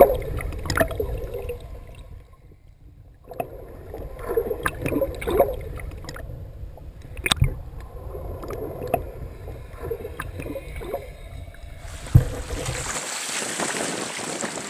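Muffled underwater sloshing and gurgling with scattered sharp clicks and knocks. About twelve seconds in it changes to the steady hiss of small waves and wind above the surface.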